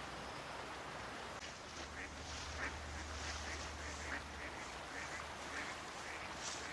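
Ducks quacking, a string of short calls about two a second that starts about a second and a half in, over a steady hiss.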